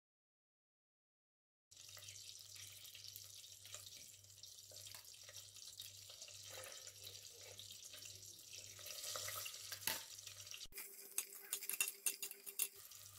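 Ghee/oil sizzling in a stainless steel pot, a steady high hiss under a low hum that pulses about twice a second. Near the end, sliced onions go into the hot fat and the sizzle turns sharper, with crackles and pops.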